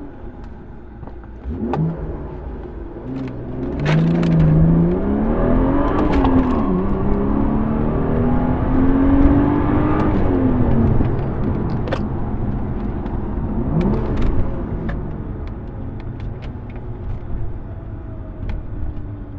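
BMW 335i/435i with an AWE Tuning cat-back exhaust, its turbocharged inline-six revving under acceleration: the exhaust note climbs and drops in pitch several times, with a few sharp pops, and eases off in the last few seconds.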